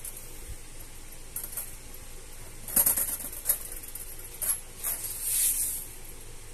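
Cats pawing at an open umbrella: several sharp taps and rustles of the canopy fabric a few seconds in, then a longer rustle near the end.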